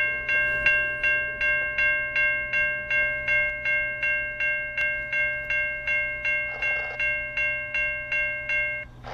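Railroad grade-crossing warning bell ringing, a clear ringing tone struck about three times a second, over a low steady hum; the bell stops near the end.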